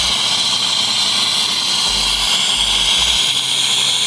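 Espresso machine's hot-water outlet dispensing boiling water: a steady, loud hissing rush with a strong high edge.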